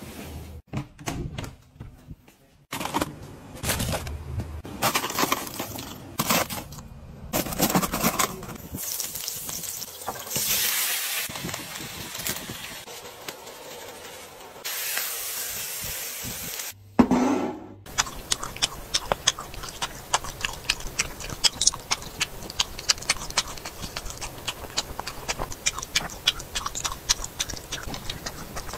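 Cooking and eating sounds: rustling and handling at first, a hiss of food cooking in a pan about ten seconds in, then from about eighteen seconds a long run of sharp, crisp clicks from eating crunchy food such as lotus root and corn.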